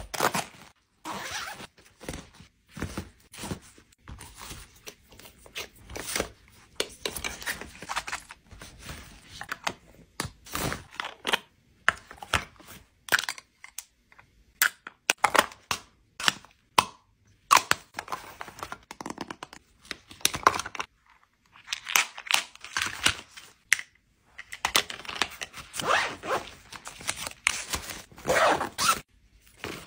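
Hands packing a fabric toiletry bag: irregular rustling, scraping and light knocks as small plastic cases and bottles are handled and set in, with a zipper worked now and then.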